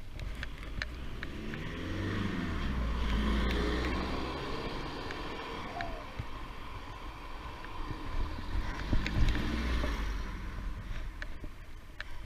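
A car passes the bicycle on a country lane: its engine and tyre noise swells over a couple of seconds, drops in pitch as it goes by, then fades. A second, lower swell of rumble follows later. The bicycle's freewheel ticks lightly at the start and near the end.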